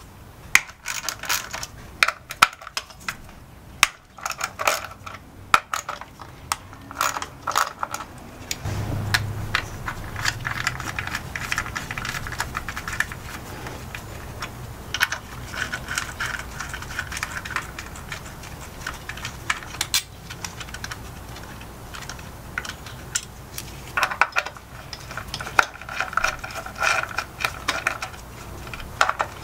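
A 3/8-inch ratchet with a 10 mm socket clicking in bursts while the ignition coil hold-down bolts on a 2012 Toyota Prius engine are loosened, with small metal clinks of the bolts and tools between the bursts. A low steady hum comes in about nine seconds in.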